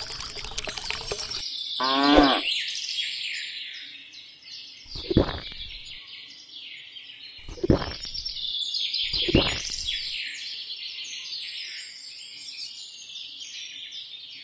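Many birds chirping and singing without a break. About two seconds in there is a falling-pitched sound, and three short, louder low sounds follow at intervals of a few seconds.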